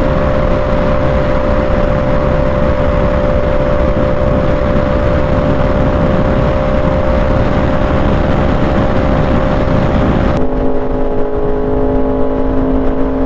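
Yamaha R1's inline-four engine holding a steady note at highway cruising speed, under heavy wind rush on the microphone. About ten seconds in, the sound changes abruptly to a lower, steady engine note.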